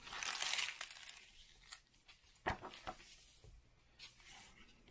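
Paper rustling as the pages of a hardcover book are turned by hand, loudest in the first second. A few sharp taps follow as the pages settle.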